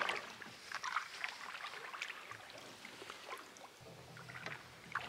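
Wooden paddle stroking through lake water from a small boat: irregular splashes and drips between strokes.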